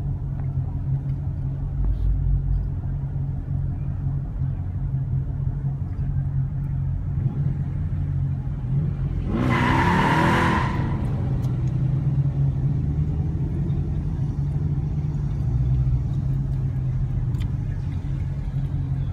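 Low, steady rumble of Dodge Charger V8 engines crawling along in slow traffic, heard from inside a car. About halfway through one engine gives a single short, loud rev.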